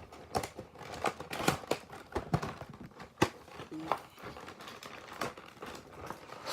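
Action-figure box and its plastic packaging being opened and handled: irregular crinkling and rustling with small clicks and taps, the sharpest tap about three seconds in.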